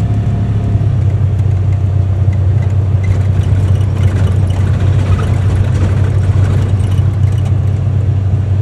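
UTV engine running at a steady pitch while the machine is under way, with a haze of driving noise over it.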